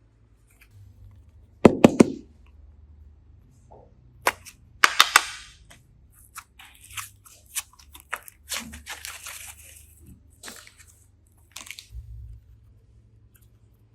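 Hands handling slime-making materials: a quick run of three sharp snaps about two seconds in, another cluster of snaps around five seconds, then scattered crackling and rustling.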